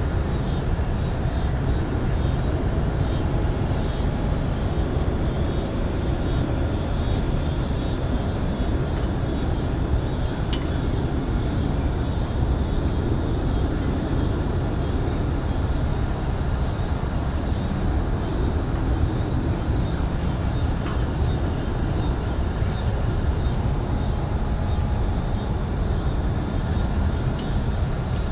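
Downtown street ambience: a steady low rumble of city traffic under a busy wash of distant, indistinct street noise, with no single sound standing out.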